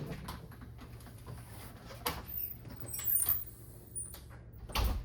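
Toaster oven tray being taken out and handled: scattered scrapes and light knocks, with sharper clatters about two, three and nearly five seconds in.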